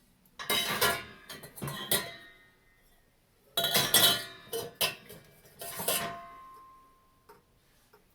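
Metal dishes and utensils clattering and clinking as they are handled, in two bursts of strikes. The last strike leaves a ringing tone.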